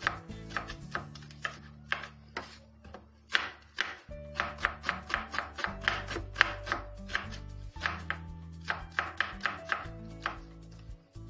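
Kitchen knife slicing an onion on a wooden cutting board: quick repeated knife strokes hitting the board, several a second, with a short let-up a few seconds in. Background music plays underneath.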